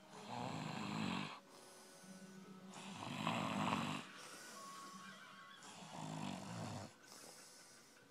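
Loud snoring: three rasping snores of about a second each, roughly three seconds apart, with quieter breathing between them.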